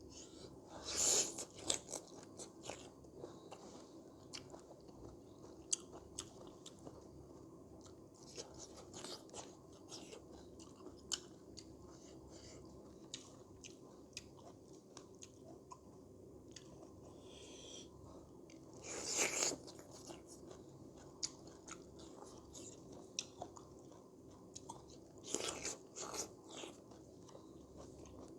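Close-miked mukbang eating: a person chewing and biting pork curry, with many small wet clicks of the mouth and three louder crunches, about a second in, about two-thirds through and near the end.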